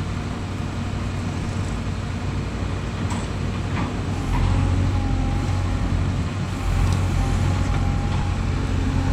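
JCB 3DX backhoe loader's diesel engine running under work, its drone rising in level about four seconds in and again near seven seconds, with a faint wavering whine above it.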